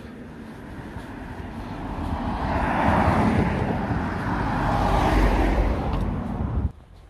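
Road traffic going by close at hand: engine and tyre noise that swells over the first few seconds, peaks twice as vehicles pass, then cuts off suddenly near the end.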